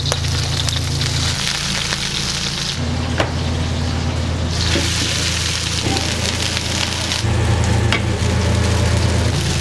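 Food sizzling loudly in frying pans, the sizzle swelling and easing back a few times as the pans are worked, with a few sharp clanks of metal pans or utensils over a steady low kitchen hum.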